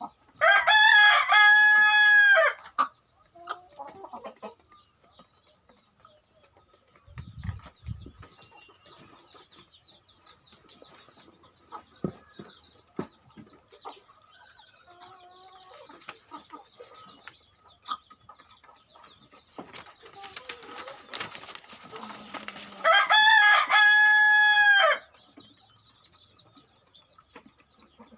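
A rooster crowing twice, each crow a long loud call of about two seconds, the second coming some twenty seconds after the first. Between the crows, hens cluck and chirp faintly, with scattered small taps.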